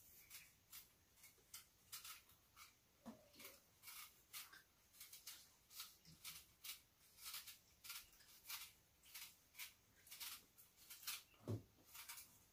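Quiet, crisp scraping clicks of a small fruit knife paring the skin off an Asian pear, a few irregular strokes a second.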